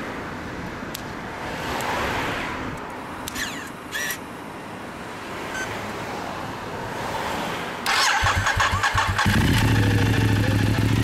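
Ducati Diavel Carbon's V-twin engine with a Zard Conico exhaust silencer being started: low background noise at first, then the starter cranks about eight seconds in and the engine catches about a second later, settling into a steady idle.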